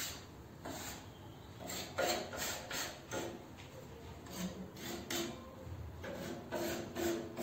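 Hand sanding of a gypsum plaster shelf edge: repeated, uneven rasping strokes, about two or three a second.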